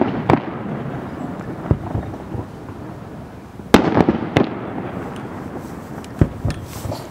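Aerial firework shells bursting in sharp bangs, with the booms echoing between them: one just after the start, a loud cluster of three about four seconds in, and two more near the end.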